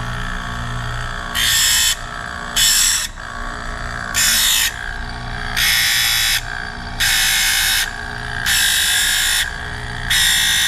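Small Chicago Electric tool grinder running steadily while the end of a piston ring is tapped against its wheel seven times, each tap a harsh grinding hiss of about half a second to a second, roughly every second and a half. This is the ring's end gap being ground open a tap at a time.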